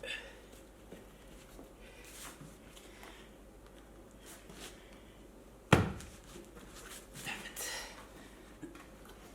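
Scattered knocks and scrapes from hand work on an electric unicycle's wheel as a stiff scooter tyre is forced onto its rim, with one sharp, loud knock about six seconds in.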